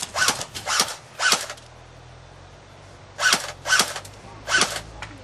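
Airsoft rifle firing single shots with sharp cracks: three in quick succession about half a second apart, a pause of about two seconds, then three more.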